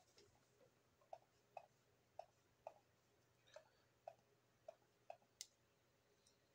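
Faint, sharp computer clicks, about nine of them at roughly two a second, over a faint steady low hum. The clicks come as the scribbled strokes in a drawing are being undone one after another.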